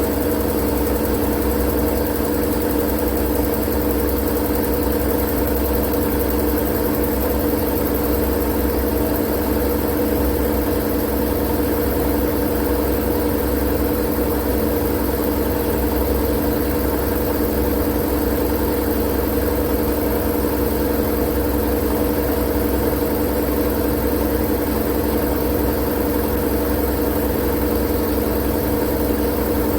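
Steady, unchanging machine drone: a low rumble and several constant hum tones over an even hiss, played as continuous white noise for sleep.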